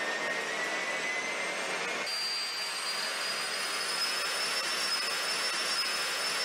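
Steady rushing, wind-like whoosh sound effect with a thin high whistle slowly rising in pitch. The whistle jumps higher about two seconds in.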